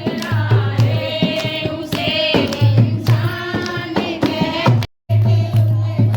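Women singing a folk song to the beat of a dholak drum. The sound drops out for a moment about five seconds in.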